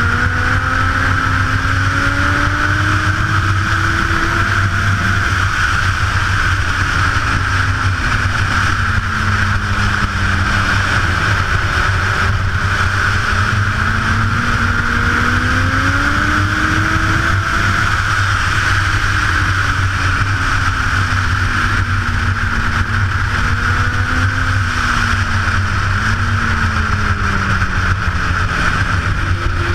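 Sport motorcycle engine at speed on a racetrack. The engine pitch climbs and falls several times as the bike accelerates and slows through the corners, over a steady rush of wind noise.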